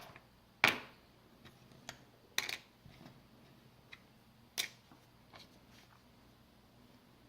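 Small hard tools set down and picked up on a work surface: a few sharp clicks and taps, three of them louder, with fainter ticks between.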